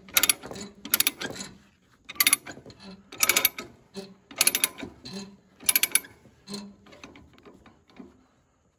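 Chain ratchet binder being cranked to tighten a load chain: a burst of ratcheting clicks about once a second with each swing of the handle. The clicks trail off to a few light ones near the end.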